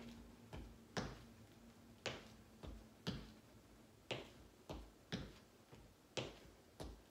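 Feet tapping and stepping on a hardwood floor in a steady exercise rhythm, about two light taps a second, a stronger tap alternating with a softer one: a march turning into toe taps out front.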